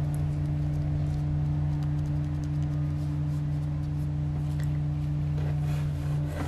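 A steady low hum running evenly throughout, with a few faint ticks over it.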